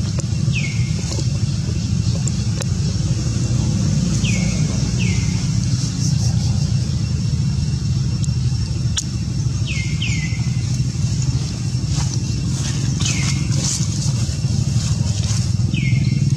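Outdoor ambience: a steady low rumble with short, falling chirps repeating every few seconds, mostly in pairs, and a few faint clicks.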